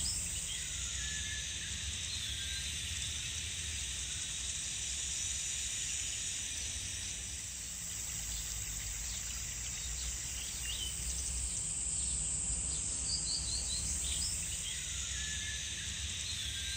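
Outdoor nature ambience: a steady high insect drone with a few short bird chirps scattered through it, over a low rumble.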